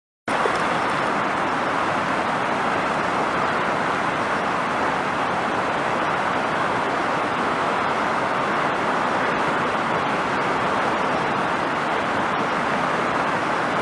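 Creek in full flood during a major rainstorm, its fast, swollen water rushing in a steady, even noise that cuts in suddenly just after the start.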